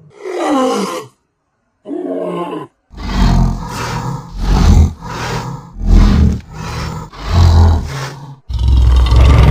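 Recorded tiger roars. There is a short roar falling in pitch, then a brief pause and another short call, then a run of loud roars about one every second and a half, which runs into one continuous roar near the end.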